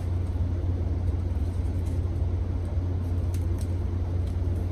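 A steady low hum that does not change, with a few faint light ticks about two and three and a half seconds in.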